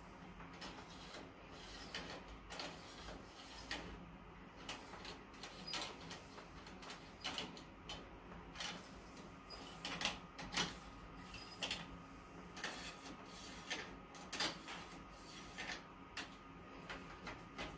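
Charge-cleaning sticks being slid in and out of a Konica photocopier's charger units to wipe toner off the charge grids, a run of irregular scrapes and clicks over a steady low hum.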